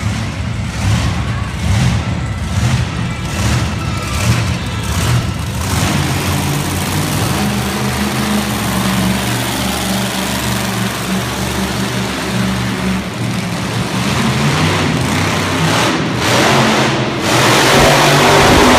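Monster truck engine revving in quick repeated bursts, then held at high revs and running hard and steady as the truck spins doughnuts on the dirt, growing louder near the end.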